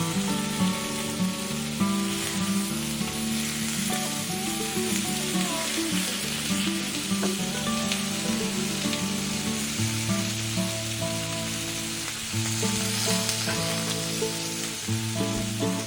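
Food frying in oil in a miniature pan, a steady sizzle, as Chinese rice is cooked. Background music with a melody plays over it.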